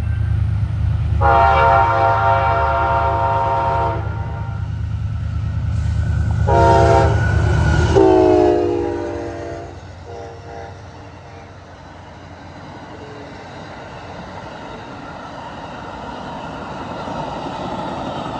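Amtrak passenger train sounding its horn for a grade crossing as it passes: a long blast, a short one, then a long one whose pitch falls as the locomotives go by. Under the horn is a heavy diesel rumble. After the last blast it gives way to the steady rolling of the passenger cars.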